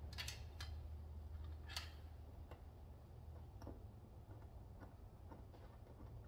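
Faint scattered clicks and taps of hands handling a tank probe's hardware. A quick cluster comes in the first two seconds, the sharpest near two seconds in, then a few lighter ticks. A low steady hum runs underneath.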